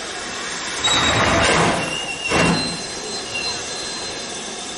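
BR Standard Class 5 steam locomotive 73082 giving two loud chuffs of exhaust steam, about a second and a half apart, over a steady hiss of steam escaping around its cylinders. A faint thin high squeal runs underneath.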